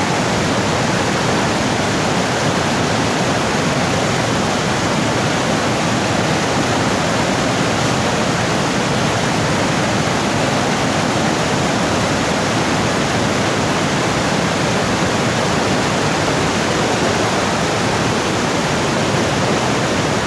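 Fast-flowing river water rushing over rocks: a steady, loud roar of rapids.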